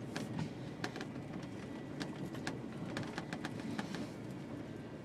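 Inside the cab of a 1989 Ford F-350 4WD truck driving slowly over a snowy trail: a steady low engine and road rumble with scattered clicks and knocks.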